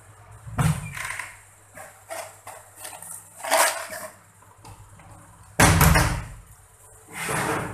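Irregular knocks and clatter from handling things on a workbench, the loudest a heavy thump about two-thirds of the way through, over a faint steady low hum.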